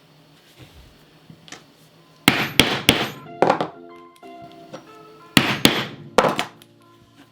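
Mallet blows on a leathercraft tool such as a punch, in two quick groups of three or four sharp strikes each, about three seconds apart. Background music with steady notes plays underneath.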